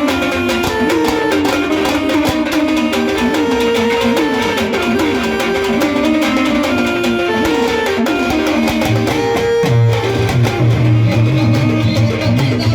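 Instrumental music led by a plucked guitar melody; a deep low bass line comes in about nine seconds in.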